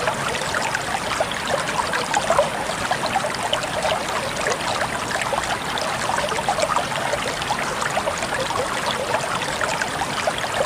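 River water flowing and babbling: a steady rush full of small, quick gurgles and splashes.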